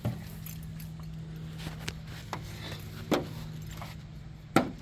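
Pry tool clicking and knocking against painted metal siding as a panel seam is worked loose: sharp metallic knocks right at the start, about three seconds in and near the end, with lighter clicks between, over a steady low hum.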